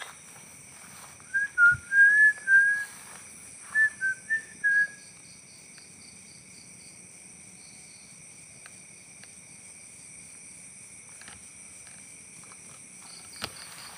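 Two short phrases of clear, slightly gliding whistled notes, the first a second or so in and the second about four seconds in, over a steady high drone of insects.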